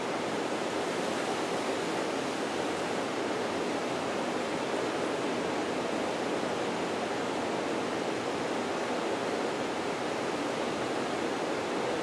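A steady, even rushing noise with no breaks or changes.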